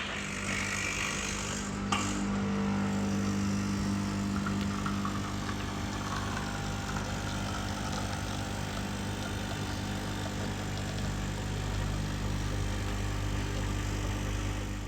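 A motor running with a steady, even low hum, and a single click about two seconds in.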